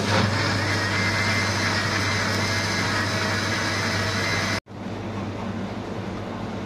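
Panasonic mixer grinder motor running at speed as it blends fruit and milk: a loud steady whir with a high whine. It cuts off sharply about four and a half seconds in, leaving a quieter steady hum.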